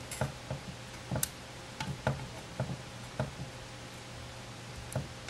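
Faint scattered clicks and taps, one every half second or so, from handling a metal graphics-card backplate while its protective plastic film is peeled off, over a steady low hum.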